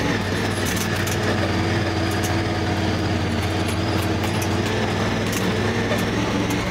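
A vehicle's engine running steadily at an even pitch, with occasional light clicks.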